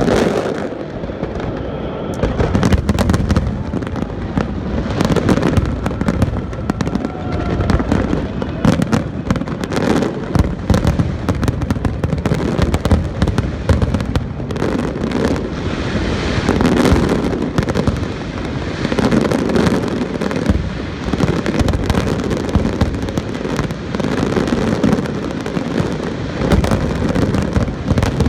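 Aerial fireworks display: a continuous barrage of overlapping booms and sharp cracks with crackling in between, loud throughout.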